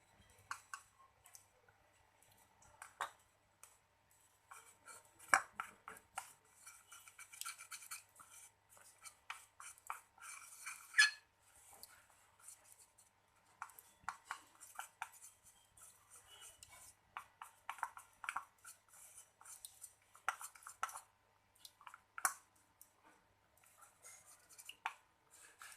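A utensil stirring a thick talcum-powder and eucalyptus-oil paste in a small container: irregular scraping and light clicking strokes, busier and louder for a few seconds in the middle.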